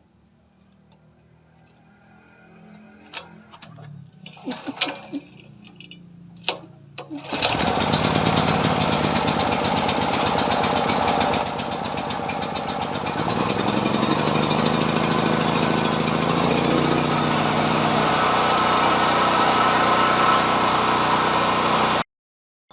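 A few knocks and clicks, then a portable gasoline power generator's small engine starts about seven seconds in and runs steadily and loudly. It cuts off suddenly near the end.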